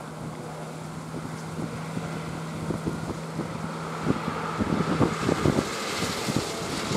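Two MH-60S Seahawk helicopters hovering low and settling to land: rotor and turbine noise growing louder toward the end, with gusts buffeting the microphone.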